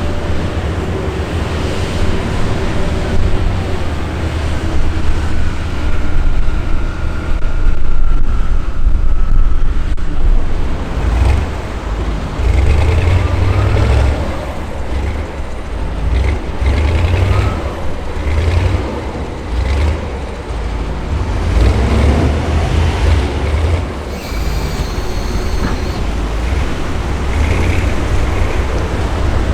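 Heavy diesel engines of M3 amphibious bridging vehicles running: a deep, continuous rumble that swells and eases as they manoeuvre, with short higher-pitched sounds now and then over it.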